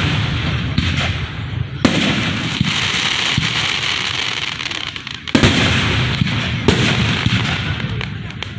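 Aerial fireworks going off close by: sharp bangs about two seconds in and twice more after the five-second mark, with a continuous crackle and rumble between them.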